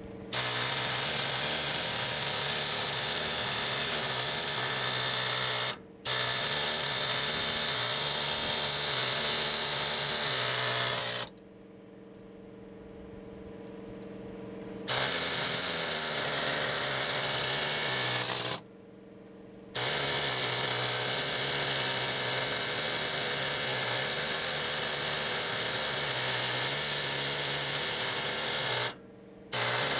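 Pneumatic air hammer with a chisel bit hammering on steel ball-joint rivet heads, cutting the factory rivets off. It runs in long steady bursts and stops suddenly four times: briefly about six seconds in, for a few seconds around the middle, again a little later, and briefly near the end.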